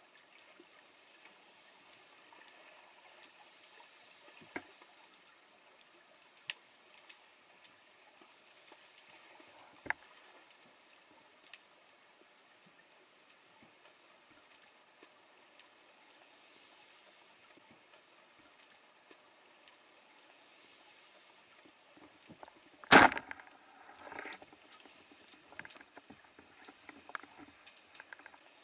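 Underwater ambience: a faint steady hiss with scattered small clicks and crackles. About three quarters of the way through comes one loud sharp knock, then a softer one about a second later.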